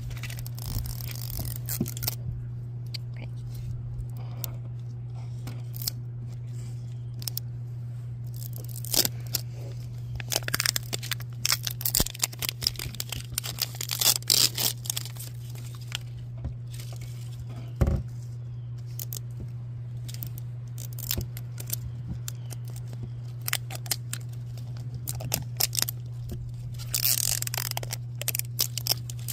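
Plastic wrapper being peeled and torn off a Zuru Mini Brands toy capsule ball: irregular crackling rips and scrapes, densest in the middle and near the end, with a sharp click about 18 seconds in. A steady low hum runs underneath.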